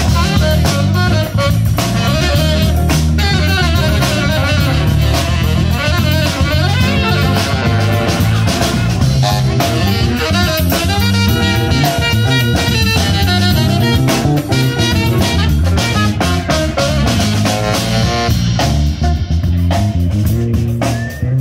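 Live jazz-funk band playing an instrumental groove: drum kit, electric bass guitar and saxophone.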